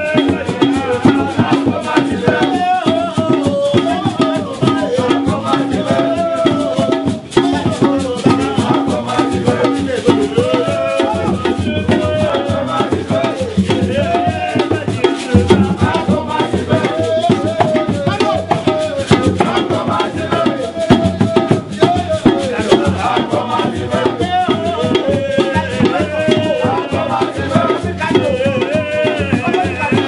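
Mgbè society music: a hand drum and rattle-like shaken percussion keep a dense, steady beat under group singing.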